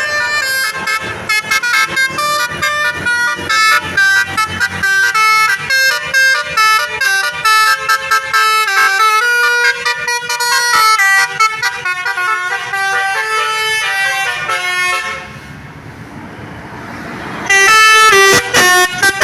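A bus's basuri telolet horn playing a fast tune of quick stepped notes. It stops about 15 seconds in, leaving a quieter stretch of about two seconds, then starts again loudly near the end.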